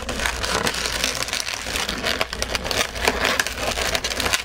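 Latex modelling balloons rubbing and squeaking against each other as a 160 balloon's pair of legs is twisted onto a balloon spider's body, in an irregular run of short crinkly creaks.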